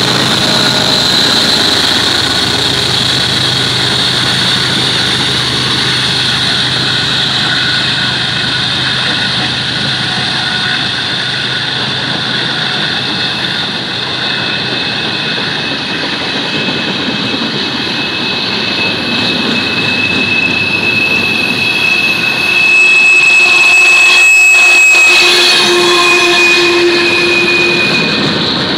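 A freight train passing close by: the trailing BNSF GE ES44DC diesel locomotive runs past at the start, then freight cars roll past steadily over the rails. In the last third a thin high steady squeal from the car wheels joins in, loudest about three-quarters of the way through.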